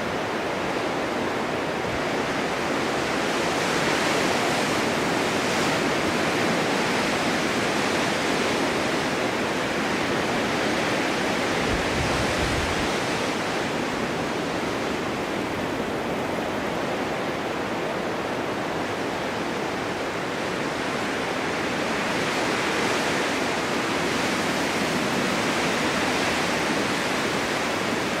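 Blizzard wind blowing snow in the mountains: a steady, dense rushing hiss that swells a little in strength now and then, with a brief low rumble about halfway through.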